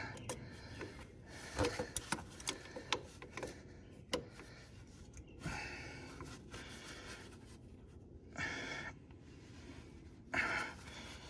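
Clicks and clinks of a pliers-type oil filter wrench being set and gripped on a tractor's hydraulic oil filter, metal tapping on the filter can, as the stuck filter is worked at. Three short breaths of effort come later on.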